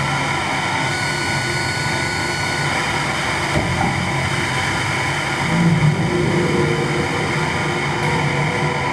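Dense, steady wall of electronic noise from a tabletop rig of effects pedals and electronics played live. A faint high tone is held for a couple of seconds near the start, and a low rumble swells up briefly about halfway through.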